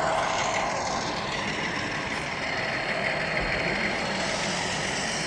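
Sound-equipped model diesel switcher locomotive playing a diesel engine running sound through its onboard speaker, steady, over a busy exhibition hall.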